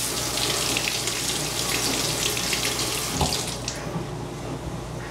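Kitchen tap running in a steady hiss that fades out about three and a half seconds in, with a light knock just after three seconds.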